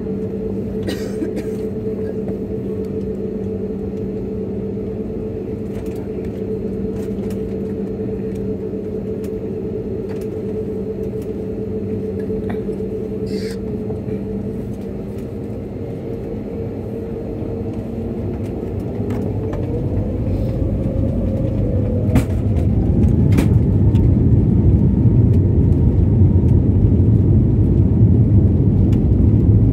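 Airbus airliner's twin jet engines heard inside the cabin, humming steadily at taxi power. About two-thirds of the way through, a rising whine sets in and the low rumble grows louder as the engines spool up for the takeoff run.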